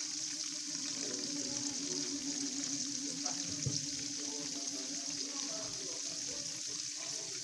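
Tofu cubes deep-frying in hot oil in a wok, a steady sizzling hiss.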